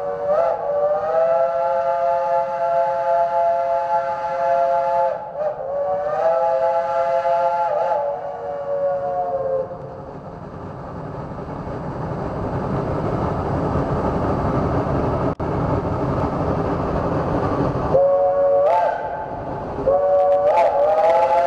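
Geared logging steam locomotive's chime whistle blowing two long blasts, several notes sounding together, with a short break between them. The whistle then stops while the approaching locomotive's working exhaust and running gear rise in a growing rush, and the whistle sounds twice more near the end.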